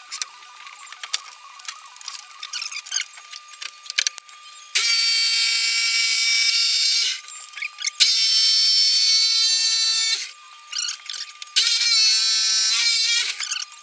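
Handheld electric power tool run in three bursts of about two seconds each, its motor whining at a steady pitch that wavers during the last burst, with small handling clicks and knocks in between.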